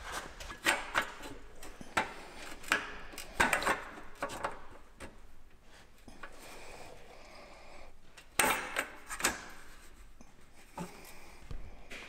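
Hand tools working the hold-down nuts of a new cylinder on a Continental O-300 aircraft engine as it is torqued down: irregular metallic clicks, knocks and short scrapes, loudest in a cluster a little past the middle.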